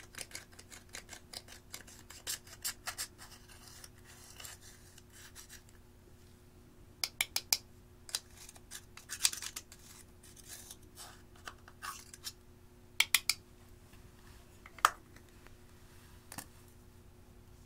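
A small metal tool scraping and crushing pressed eyeshadow in a plastic palette, in quick scratchy strokes, about three or four a second. After about six seconds the scraping thins out into scattered sharp clicks and taps.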